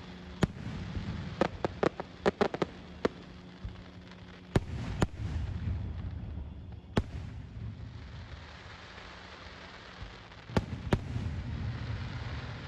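Aerial fireworks shells bursting in a display: about a dozen sharp bangs at irregular intervals, with a low rumble of booms between them.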